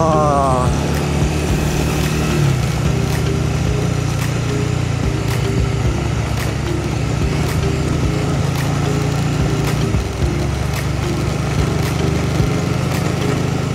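Honda CBR150R's single-cylinder four-stroke engine running at steady revs while riding, with wind rushing over the camera. The engine note changes about two and a half seconds in and dips briefly near ten seconds.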